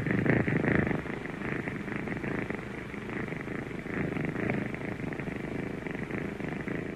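Young kitten purring, a continuous rough, pulsing purr, a little louder in the first second and then steady.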